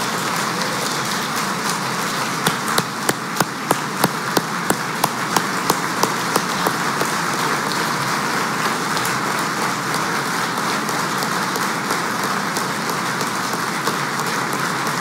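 Audience applauding steadily. For about four seconds, starting a couple of seconds in, one person's claps stand out, loud and regular at about three a second.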